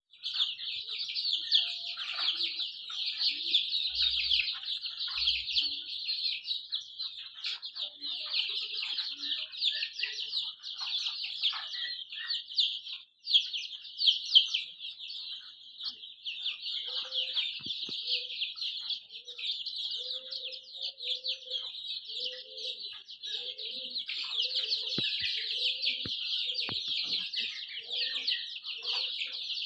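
A crowd of desi chicken chicks peeping without a break, a dense high-pitched chirping of many birds at once. From about halfway through, a run of short, lower calls repeats under the peeping.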